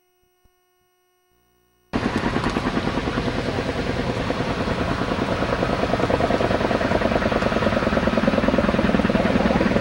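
Near silence, then about two seconds in a helicopter starts up abruptly in the sound, loud and steady, its rotor beating fast and evenly.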